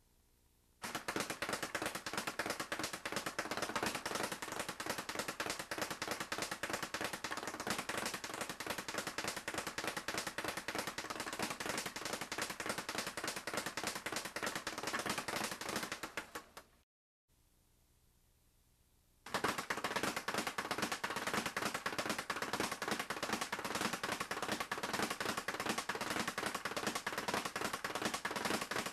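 Leather speed bag punched in fast combinations, rattling continuously against its wooden rebound board in a rapid machine-gun-like drumming. The rattle stops a little past halfway for about two seconds, then starts again.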